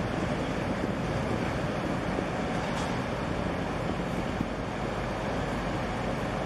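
Steady rush of wind on the microphone mixed with harbour water, an even noise with no distinct engine note or horn.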